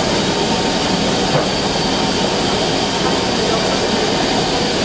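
Standing BR Standard Class 7 'Britannia' steam locomotive letting off steam: a steady loud hiss of escaping steam.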